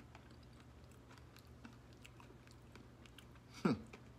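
Quiet chewing and small wet mouth clicks of someone eating Oreo cream filling without the cookie. A brief falling 'mm' hum comes about three and a half seconds in.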